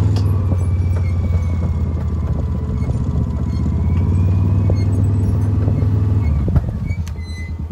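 Side-by-side UTV driving along a dirt track, its engine giving a steady low rumble. About six and a half seconds in there is a sharp knock and the engine eases off.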